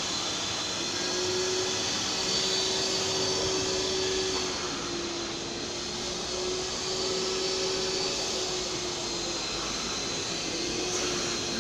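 Karcher Puzzi 10/2 Adv spray-extraction cleaner's suction turbine running steadily, drawing cleaning solution back out of upholstery. It is a continuous rushing noise over a steady whine that dips slightly in pitch now and then.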